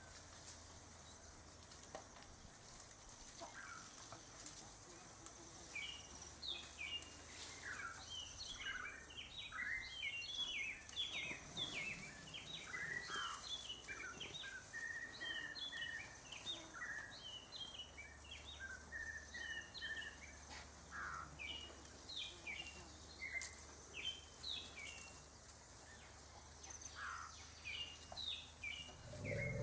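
Many small birds chirping and calling in quick, short, mostly falling notes, starting about six seconds in, over a faint steady high-pitched whine.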